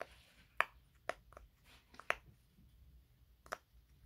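Silicone pop-it fidget toy's heart-shaped bubbles being pressed with the fingers, giving about half a dozen sharp pops at irregular intervals, the loudest about half a second in.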